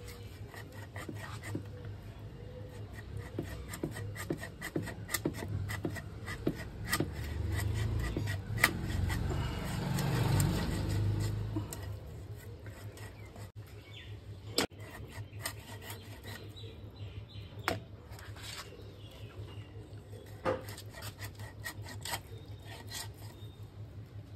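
Knife cutting a large pangas fish into steaks on a concrete floor: irregular scraping and knocks as the blade works through flesh and bone. A denser, louder stretch of rough cutting comes about eight to twelve seconds in.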